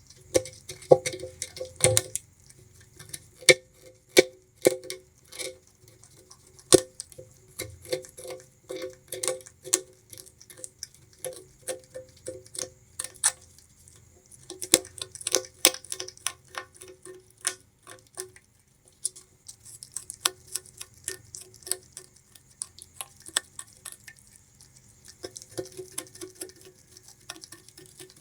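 Bamboo rat gnawing and chewing sugarcane: rapid, irregular sharp crunches and clicks in clusters, with a few short pauses.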